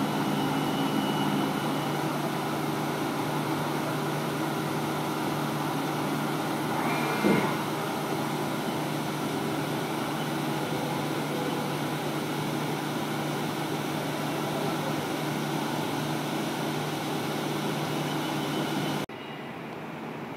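Haas VF-6 50-taper CNC vertical mill cutting a block of 4140 pre-hardened steel under flood coolant: a steady blend of spindle, cut and coolant spray with a low hum, and one brief louder knock about seven seconds in. About nineteen seconds in, the cut and the coolant stop suddenly, leaving a quieter machine hum.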